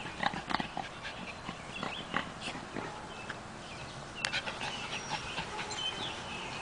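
Maltese dog panting in quick, irregular breaths, busiest in the first couple of seconds and then thinning out, with a few brief high chirps.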